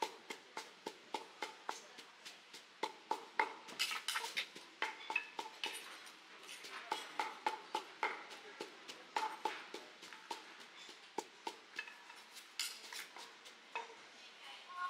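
Pestle pounding in a mortar while making som tam (papaya salad): an irregular run of sharp knocks, a few a second, with utensil clinks among them.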